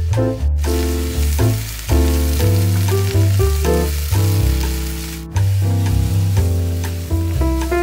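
Sliced mushrooms and garlic sizzling in oil in a nonstick frying pan as they are stirred with a wooden spatula and tossed. Background piano music plays over it.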